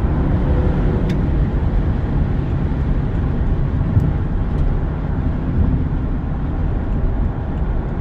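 Steady low road and engine rumble inside the cabin of a BMW 650i cruising at speed.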